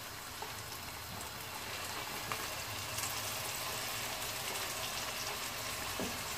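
Oil sizzling steadily in a pan of frying dried fish and onions; chopped tomatoes are tipped in and the sizzle grows a little louder about two to three seconds in, with a few light clicks.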